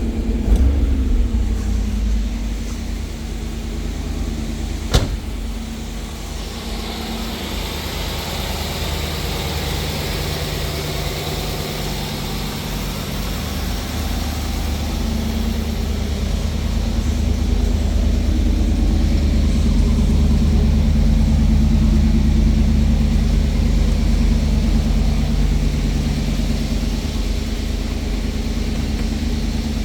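1991 Pontiac Firebird engine on a stock exhaust, idling soon after a cold start, with a short throttle blip right at the start. A single sharp click about five seconds in, and the idle grows a little louder in the second half.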